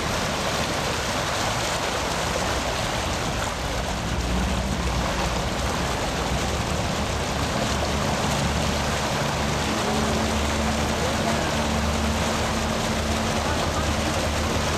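Motorboat engine running at a steady drone under a constant rush of water spray and wind as the boat moves at speed.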